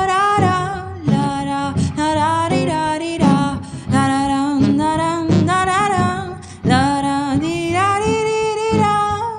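A woman singing a wordless 'la ra la' melody, her notes gliding and wavering, over plucked acoustic guitar.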